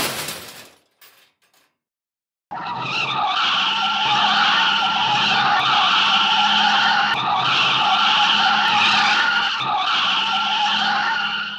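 A crash with breaking glass and debris at the start that dies away, then after a short silence a car's tyres screeching loudly and steadily for about nine seconds before cutting off suddenly.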